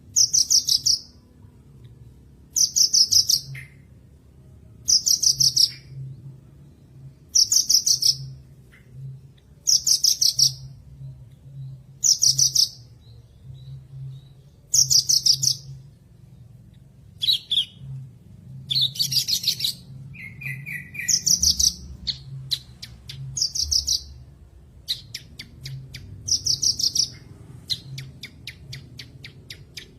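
Javan bush lark (branjangan) singing: short, high-pitched trilled phrases repeated about every two seconds, with a lower, different phrase near the middle and a rapid run of clicking notes toward the end.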